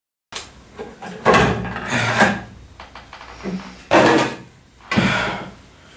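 Black plastic hard-drive enclosure being handled and pried apart by hand: several loud knocks and clatters of the plastic shell, with scraping and rattling between them.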